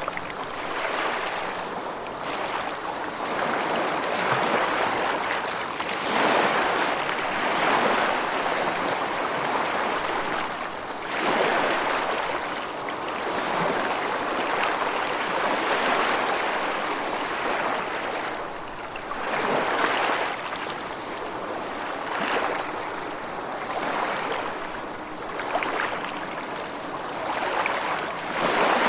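Rushing water, a steady wash that swells and fades in surges every few seconds, like waves breaking.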